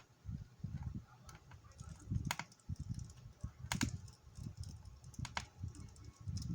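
Plastic clicks and knocks from handling an Acer Aspire 4736Z laptop's case during disassembly: three sharp clicks roughly a second and a half apart, over soft, irregular handling bumps.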